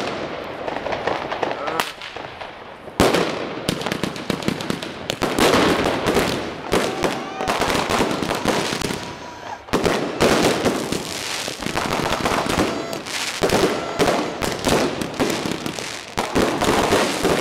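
Fireworks going off in quick succession: aerial shells bursting and firecrackers crackling almost without pause, with a brief lull about two seconds in and again near the middle.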